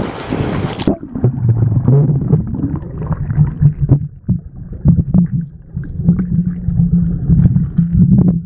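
Fast river rapids rushing, heard first above the surface. About a second in, the high end cuts off as the camera goes underwater, and the water becomes a muffled low rumble with a steady hum and many short clicks and knocks.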